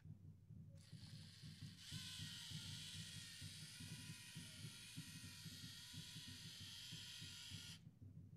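Small electric motors of a LEGO Mindstorms EV3 robot whining faintly as it drives. The whine is steady with a slight waver in pitch; it starts about two seconds in and stops shortly before the end.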